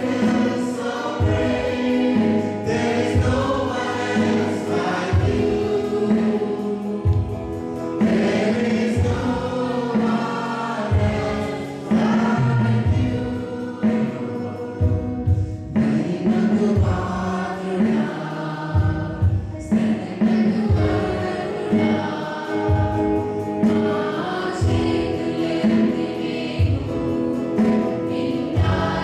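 Church worship music: a choir of voices singing a gospel worship song over instrumental accompaniment with a recurring bass beat.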